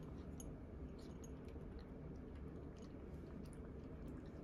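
Siberian cat eating from a ceramic bowl: faint, irregular small chewing clicks over a low steady room hum.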